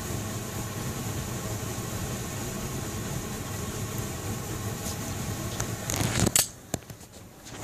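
Powdered dry fuel blown by compressed air through a hose into an open flame, burning as a big fireball with a steady rushing noise and low rumble. About six seconds in come a few sharp knocks and clatter, then the sound drops away to a quiet hush.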